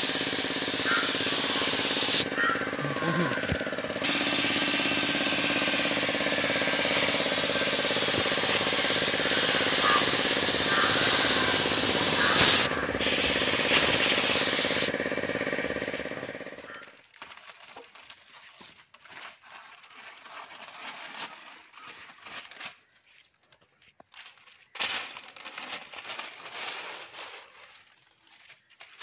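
Gravity-feed paint spray gun hissing steadily as paint is sprayed, over the hum of the air compressor feeding it; the hiss stops briefly twice while the hum goes on. A little past halfway this gives way to much quieter scattered rustling as newspaper masking is pulled off the painted bus.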